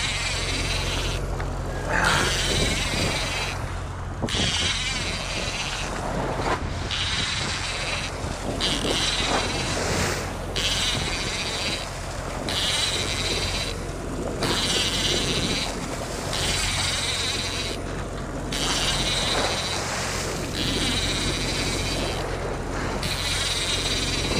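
Fishing reel cranked in repeated spells of about two seconds, each broken by a short pause, as in jigging; a steady low hum runs beneath.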